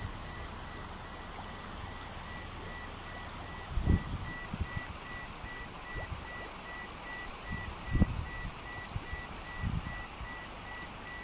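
Floodwater running across a street as a steady rushing hiss. Low thumps on the phone's microphone come about 4 and 8 seconds in.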